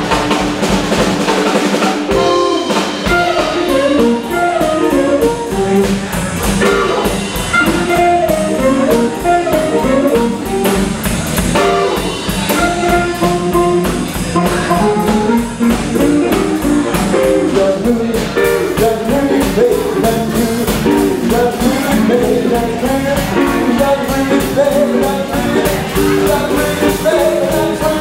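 Live blues band playing: a harmonica playing lead lines over electric guitar, electric bass and a drum kit.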